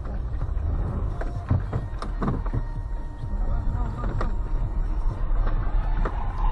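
Low rumble of a car's engine and tyres heard from inside the cabin while driving slowly over a snowy lane, with scattered knocks and clicks.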